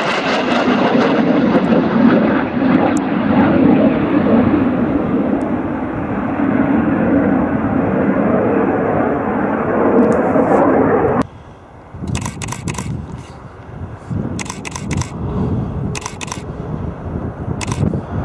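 BAE Systems Hawk jet's Rolls-Royce Turbomeca Adour turbofan passing low, a loud roar whose high end fades as the jet climbs away. About eleven seconds in it cuts off abruptly to a quieter, more distant jet rumble broken by short crackles.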